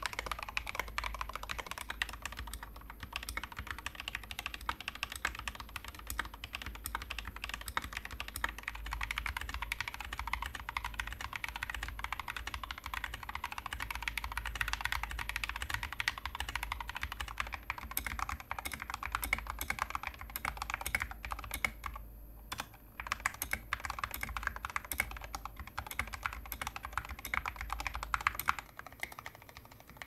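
Fast, steady touch-typing on a succession of mechanical keyboards fitted with ABS doubleshot SA-profile keycaps, among them a GMMK Compact with lubed Kailh Box Red switches. The clacking breaks off briefly about 22 seconds in.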